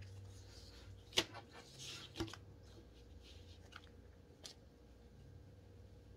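Faint rustling of paper and packaging with a few light taps and clicks as the parts of a cross-stitch kit are handled, over a steady low hum.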